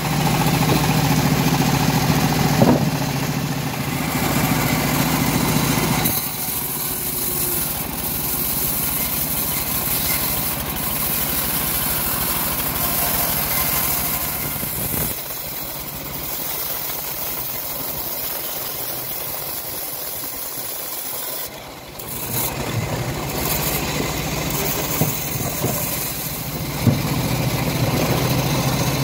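Homemade bandsaw sawmill running as it saws through old teak, a steady machine drone with the blade cutting. The tone shifts abruptly a few times, with a brief drop in level just before the last third.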